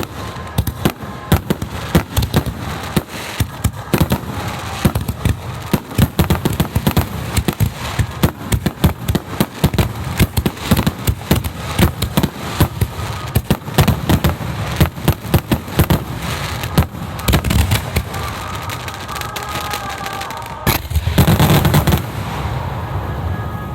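Starmine fireworks barrage: a rapid run of shell launches and bursts, several a second, building to a loud unbroken flurry of bursts near the end that then eases off.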